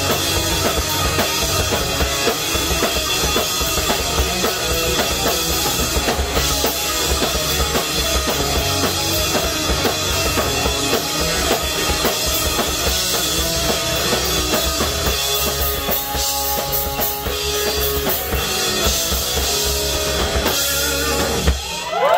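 A punk band playing live in a small room: full drum kit with bass drum and snare, electric guitars and bass. The song stops abruptly near the end.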